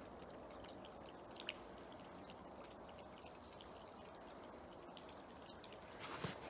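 Faint, steady trickle of water with a few scattered drips. Footsteps start near the end.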